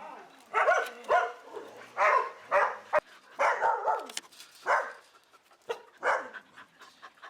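Dogs barking repeatedly in short, pitched barks, thinning out over the last couple of seconds.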